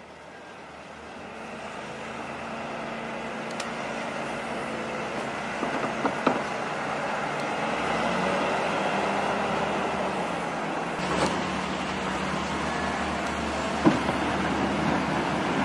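Wheel loader's diesel engine running steadily under load while it pushes snow with its front blade, fading in over the first couple of seconds. A few sharp knocks stand out, the loudest near the end.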